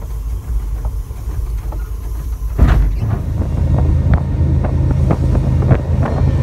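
Freight locomotive running under way, heard from inside the cab as a steady low rumble. A sharp knock comes about two and a half seconds in, the rumble grows louder, and irregular knocks and clicks follow.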